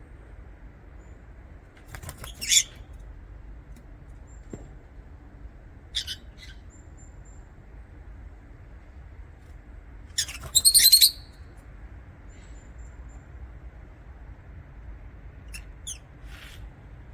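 Lovebirds giving short, shrill chirps every few seconds, with the loudest burst of chirping about ten seconds in.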